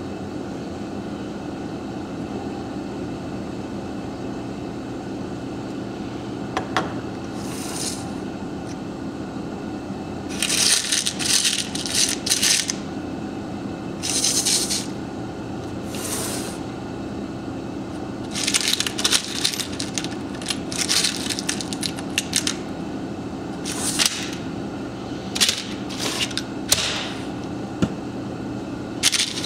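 A hand stirring through a plastic box of loose metal screws and bolts: repeated bursts of metallic clattering and rattling, starting about ten seconds in. Under it runs a steady low hum.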